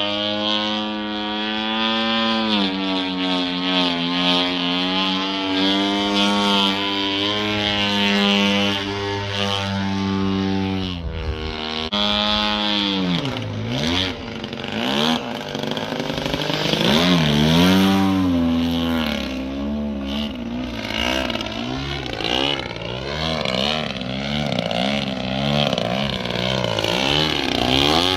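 Radio-control aerobatic plane's engine and propeller running in the air, holding a steady pitch for about ten seconds, then swooping down and back up in pitch several times as the throttle is worked through the manoeuvres.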